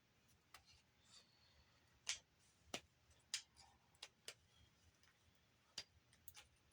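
Scattered light clicks and taps, about eight at uneven intervals, of small parts being handled and pried during the teardown of a Blu-ray player.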